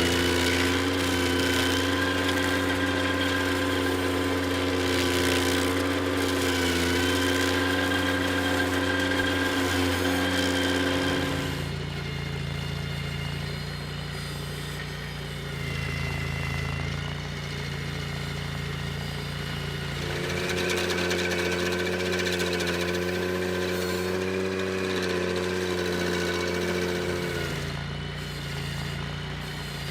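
Ventrac compact tractor running a KC180 stump grinder attachment with carbide cutters. The engine runs steadily, its note dropping and quietening about twelve seconds in, rising again around twenty seconds, and dropping once more near the end as the load on the grinder changes.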